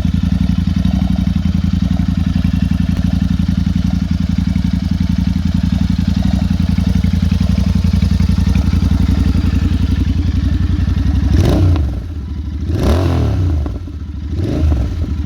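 Royal Enfield Continental GT 650's parallel-twin engine idling steadily, then blipped three times near the end, each rev rising quickly and dropping back to idle.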